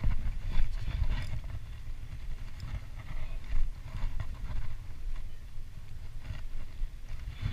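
Spinning rod and reel being worked under a fish's pull: a low rumbling handling noise with irregular light clicks and knocks.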